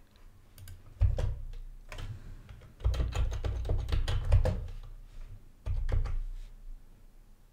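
Typing on a computer keyboard: a run of quick key clicks, with several dull low thuds mixed in.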